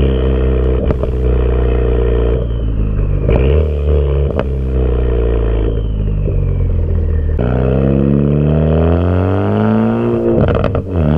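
Straight-piped 2014 Ford Focus ST's 2.0-litre turbocharged four-cylinder exhaust running at steady revs, with a few sharp pops from its pops-and-crackles tune. About two-thirds of the way in, the revs start to climb steadily, then dip briefly near the end.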